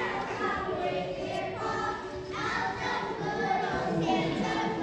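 A choir of children singing together.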